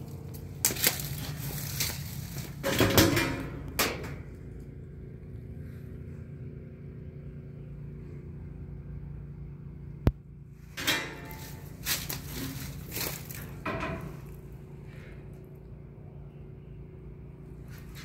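Irregular crunching and rustling of someone moving about on dry leaf litter, with handling knocks, in two clusters with a single sharp click between them, over a steady low hum.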